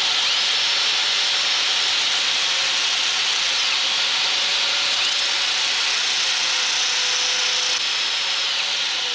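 Angle grinder running steadily, its disc grinding down the steel bristles of a small wire brush held in a cordless drill's chuck.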